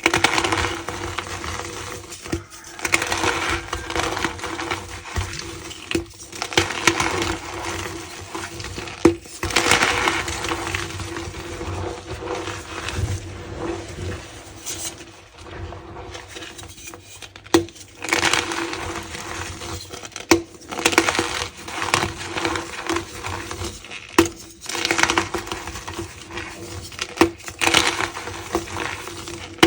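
Tie-dyed gym chalk being crushed and squeezed by hand, crunching and squeaking in irregular bursts with sharp cracks among them.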